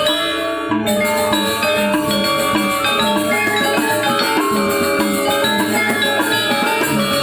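Balinese gong gamelan playing an instrumental piece: bronze metallophones and gongs struck in a dense, interlocking rhythm with drums, their tones ringing on.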